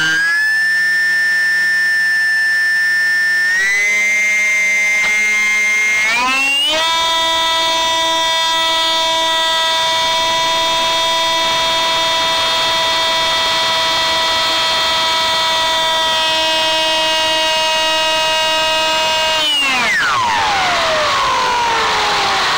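ParkZone Stryker flying wing's electric motor and propeller whining under power, heard from the onboard camera; the pitch steps up twice in the first seven seconds as the throttle is opened, then holds steady. About three seconds before the end the throttle is cut: the whine drops away steeply and keeps falling as the propeller winds down, under a rush of air.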